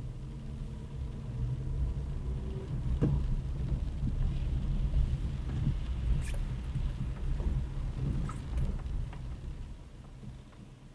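A car driving on a wet road, heard from inside the cabin: a steady low engine and road rumble with scattered faint ticks, easing off near the end as the car slows.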